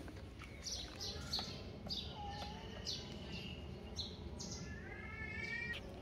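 Birds chirping in short, high, falling notes repeated every half second or so, with a longer whistled note midway. Under them is a steady low rumble, fitting a small plastic-wheeled kick scooter rolling on concrete.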